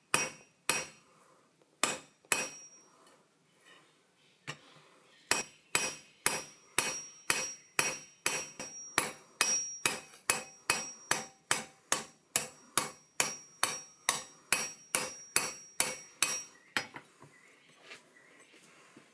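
Hand hammer striking hot steel on an anvil, each blow with a metallic ring. A few spaced blows come first, then after a short pause a steady run of about three blows a second that stops near the end.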